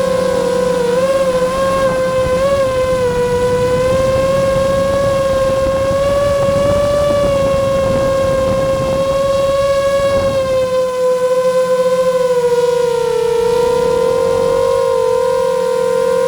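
FPV multirotor drone's electric motors and propellers whining steadily, the pitch wavering slightly with throttle, over a rushing noise of air that eases about ten seconds in.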